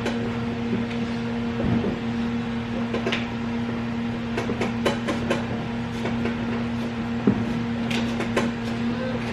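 A steady low electrical hum runs throughout, with scattered light clicks and knocks, the sharpest about seven seconds in.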